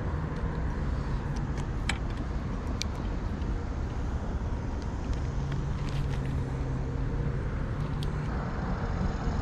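Steady low rumble and hiss, with a low engine-like hum that comes and goes and a few light clicks.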